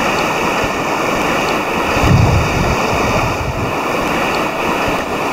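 Steady rushing of a mountain river flowing over gravel, with a gust of wind buffeting the microphone briefly about two seconds in.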